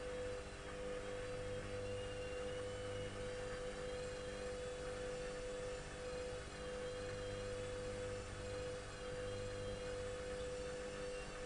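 Electrolux EWS 1045 washing machine running, its motor giving a steady whine over a low hum that swells and eases every few seconds.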